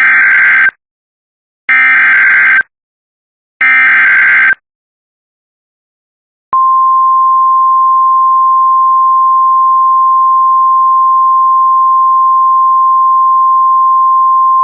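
Emergency Alert System SAME header: three short warbling data bursts about two seconds apart. After a pause of about two seconds, the steady 1050 Hz NOAA Weather Radio warning alarm tone starts and holds. Together they announce a severe thunderstorm warning.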